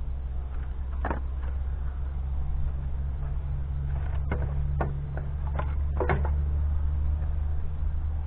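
Split firewood pieces knocking against each other as they are handled and stacked: several sharp wooden knocks, clustered about four to six seconds in, over a steady low rumble.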